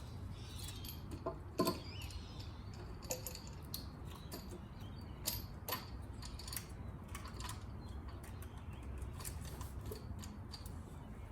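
Metal tools and engine parts clicking and clinking as a new ignition coil is fitted under the bonnet, in scattered short knocks. One louder clank rings briefly about a second and a half in.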